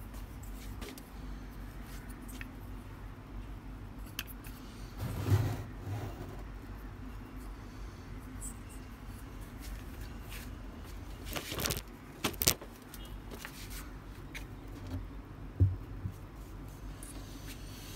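Handling noise: light clicks and knocks as wires and a plastic bulb holder are handled against a small sealed lead-acid battery on a wooden table, with a cluster of sharp clicks about twelve seconds in, over a steady low hum.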